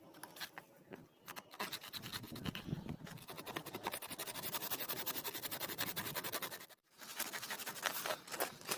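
Rapid, rhythmic scratching or scraping on a hard surface. It cuts off suddenly near the end, then starts again.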